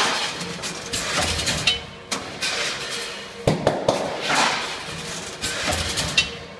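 Vertical form-fill-seal bagging machine running through its bag cycles. Rushing swells and sharp knocks repeat every second or so over a steady hum, with a cluster of knocks about halfway through.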